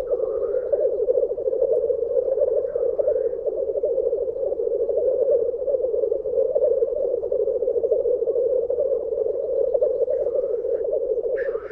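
Male black grouse at a lek, their continuous bubbling, dove-like rookooing chorus running without a break. A few brief higher calls rise over it now and then.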